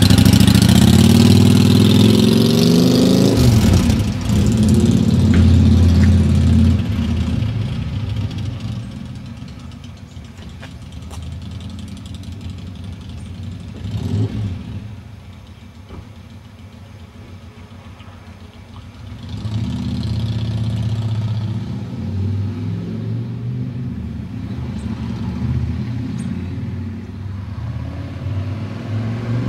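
Yamaha Virago XV1100's air-cooled V-twin engine pulling away, its pitch rising through the first gear with a shift about four seconds in. The engine sound then fades as the motorcycle rides off, and grows louder again about twenty seconds in as it turns and comes back.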